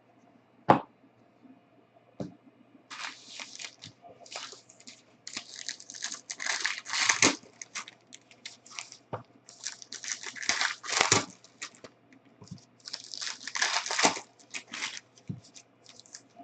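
Plastic and foil trading-card packaging being torn open and crinkled in repeated crackling bursts as a box of basketball cards is unwrapped. A sharp knock sounds about a second in.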